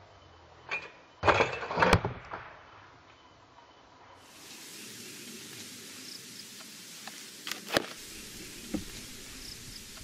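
Cardboard scraping and knocking as the box trap's stick trigger is handled and set, loudest about a second and a half in; then a steady outdoor hiss with a few sharp taps.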